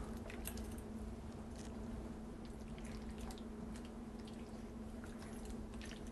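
Thick, creamy stroganoff sauce with beef and mushrooms being stirred in a skillet: soft wet squishing with scattered light clicks of the utensil against the pan, over a steady low hum.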